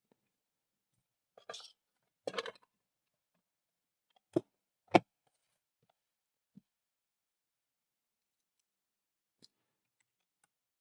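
Scattered clicks and short rattles of a small screwdriver fix-it kit being handled. The two sharpest clicks come about four and five seconds in, and a few faint ticks follow.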